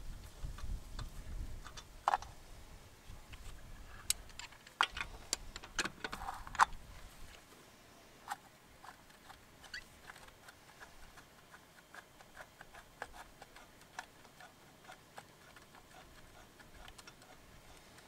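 Wheel nuts being spun on by hand: sharp metal clicks and knocks with some handling rumble in the first seven seconds, then a run of light ticks, about two or three a second, as the nut runs down the stud threads.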